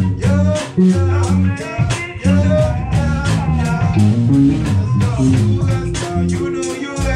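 A small band playing live: drum kit and guitar over low, changing bass notes, with steady drum hits.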